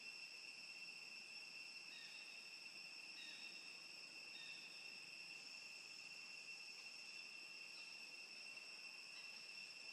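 Faint, steady, high-pitched drone of insects, one unbroken tone with an overtone above it. A few faint short chirps come in about two, three and four seconds in.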